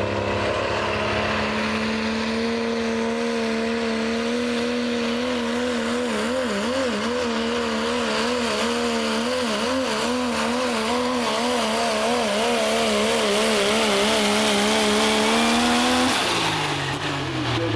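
Dodge Ram pull truck's turbo-diesel engine running flat out under load as it drags the weight sled, its pitch held high and wavering quickly up and down through the middle of the pull as the tires hop and grab. About sixteen seconds in the engine lets off suddenly and its pitch falls away.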